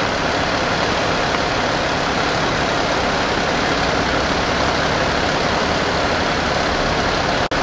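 Steady, loud running of a heavy diesel engine idling, as from the fire engines standing at the scene.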